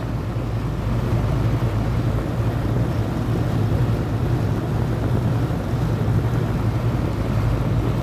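Outdoor R22 air-conditioner condensing unit running: the compressor gives a steady low hum under the rush of air from the spinning condenser fan. It is a compressor that had been called bad, running normally with its contactor held closed.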